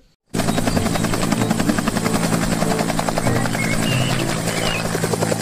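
Bell UH-1 'Huey'-type two-bladed military helicopter hovering low, its rotor chopping in a fast, steady beat. It starts abruptly just after the beginning.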